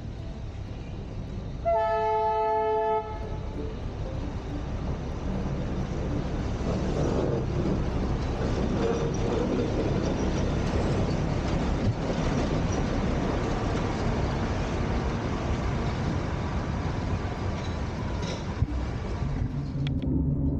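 Darjeeling Himalayan Railway toy train: one short horn blast about two seconds in, then the train's steady running noise.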